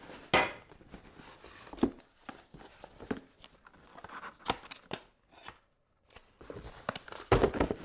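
Packaging being handled in and around a cardboard box: a scattered series of light knocks, taps and scrapes as flat pieces are lifted out and set down, with a brief lull about two-thirds through and a busier cluster of handling noises near the end.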